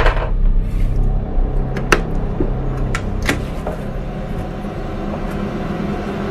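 Cardboard box being opened by hand: a few sharp taps and scrapes of the flaps and packaging, over a steady low rumble.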